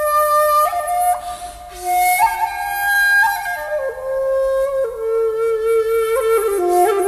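Instrumental music: a flute carries a slow melody of held notes with short slides between them, over a second line moving alongside it.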